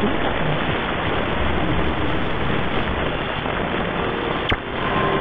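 Shortwave AM receiver noise: dense hiss and crackle from a weak 5850 kHz signal, with no programme speech coming through. A single sharp static crack about four and a half seconds in.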